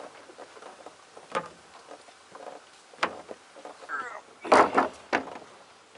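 A few separate knocks and clatters of hard gear being handled and set down on wooden dock planks from an inflatable dinghy, including a hard plastic case; the loudest cluster comes about four and a half seconds in.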